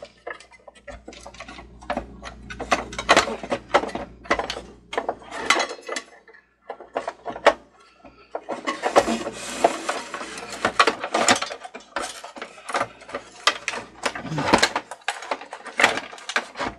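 Plastic and metal parts of a Cricut cutting machine clicking, knocking and rattling as it is taken apart by hand, with a short pause about halfway through.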